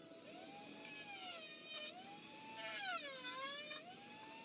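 Dremel rotary tool cutting the plastic of a Nerf blaster shell. Its high whine rises and falls in pitch, with two harsher, louder stretches of about a second each, one about a second in and one near the three-second mark.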